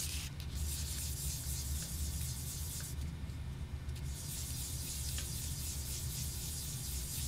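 A small cork oboe pad rubbed back and forth by hand on abrasive paper laid over a flat sharpening stone, truing the face that will seal against the tone hole: a soft, steady scratchy hiss that stops for about a second around the middle.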